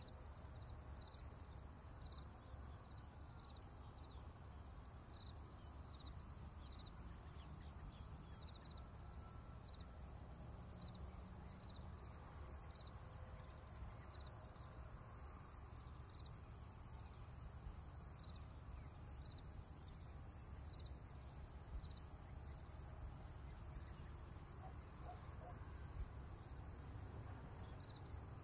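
Faint insect chorus, crickets or similar: a steady high buzz with a soft chirp repeating a little more than once a second, over a low rumble.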